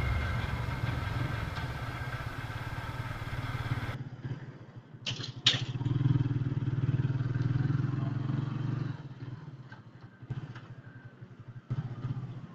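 Yamaha Vixion's single-cylinder four-stroke engine running at low speed while the motorcycle rolls slowly, with two sharp clicks about five seconds in. The engine drops to a quieter, uneven low-speed running after about nine seconds.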